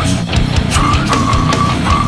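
Brutal death metal: distorted guitars and fast, dense drums, with no voice standing out.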